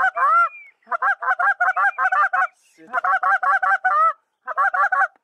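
Mallard-style quacking in three quick runs of short, evenly spaced notes, about seven or eight a second, with a brief high whistle near the start.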